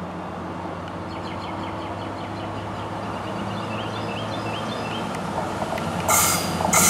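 NJ Transit River Line Stadler GTW diesel railcar approaching, its engine hum growing steadily louder, while a bird chirps in repeated short rising notes. Near the end two loud hissing bursts break in.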